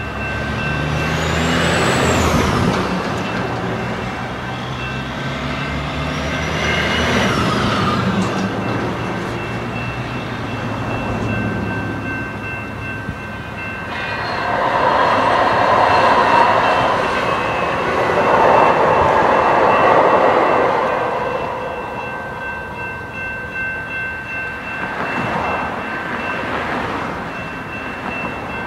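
Railroad crossing warning bells ring steadily while road traffic passes. About halfway in, a light rail train rolls through the crossing and is loudest for several seconds.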